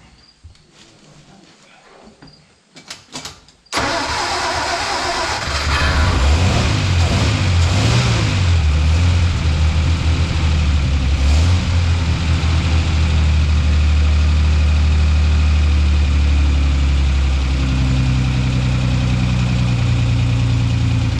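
1946 Hudson Commodore's flathead straight-six starting about four seconds in on its first start after a decarbonizing job. It revs up and down for several seconds, then settles into a steady idle.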